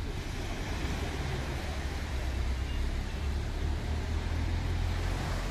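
Outdoor ambience: a steady low rumble under a soft, even hiss. The rumble swells about a second in and drops suddenly at the end.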